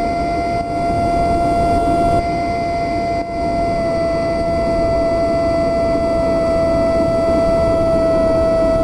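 Electric motor and propeller of an AR Wing FPV flying wing whining at a steady pitch, heard through the plane's onboard camera over rushing air noise. The pitch dips slightly about four seconds in.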